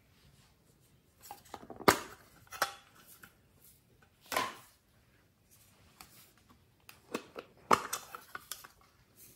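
Small plastic slime containers clicking and knocking as they are handled and their hinged lids opened, with short rustles as their contents are tipped into a glass tray. The sounds come as scattered single clicks and knocks, the sharpest about two seconds in and another pair near the end.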